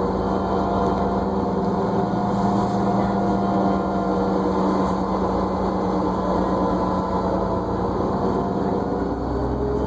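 New Flyer D40LFR diesel bus running, with its drivetrain whine, several steady tones over a low engine rumble, shifting in pitch about nine seconds in.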